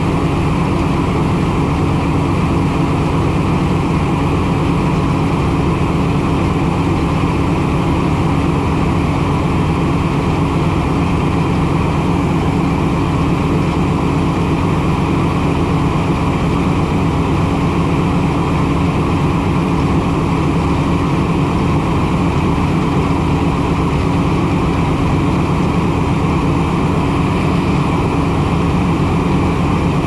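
Farm machine engine running steadily at a constant speed: an even, unchanging drone with a steady hum.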